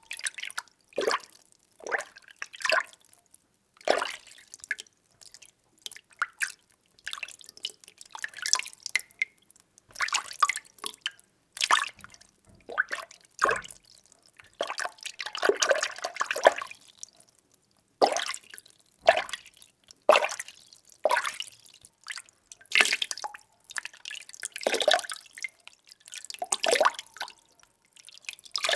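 Water being stirred: irregular splashing, sloshing strokes about once a second with short gaps between, and a longer swirl about halfway through.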